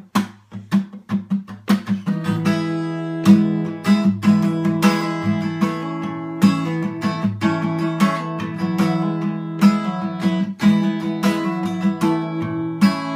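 Acoustic guitar strummed as a song's instrumental intro: short, clipped strokes for about the first two seconds, then full chords that ring on between strokes in a steady rhythm.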